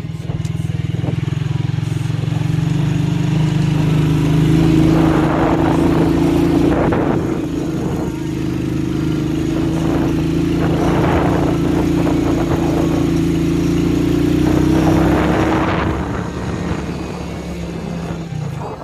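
Motorcycle engine running while riding along a rough road. The engine note holds fairly steady, with a few louder stretches of rushing noise.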